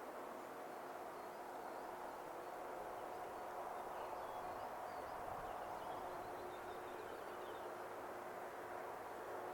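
Faint steady hum with a few faint bird chirps about three to six seconds in.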